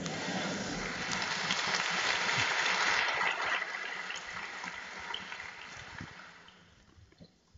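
Audience applauding: dense clapping that starts at once, swells for the first three seconds or so, then dies away about seven seconds in.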